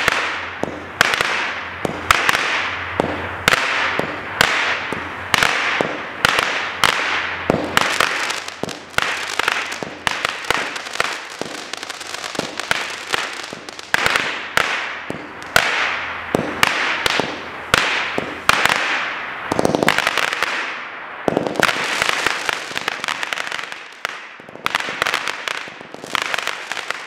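Fireworks Fiesta (WP634) multi-shot consumer fireworks cake firing its tubes in quick succession, about one to two shots a second. Each shot is a sharp pop followed by a hissing tail.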